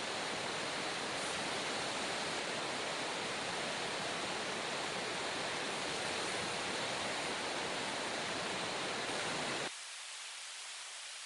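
Steady rush of a fast-flowing river. It cuts off abruptly near the end, leaving a quieter, thinner hiss.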